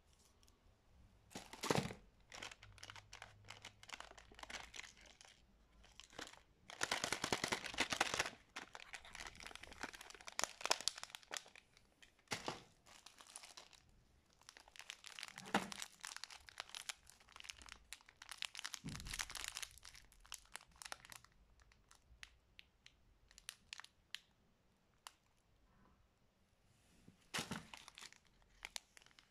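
Plastic candy wrappers crinkling as packaged sweets are handled, in irregular crackly bursts with quieter gaps between them.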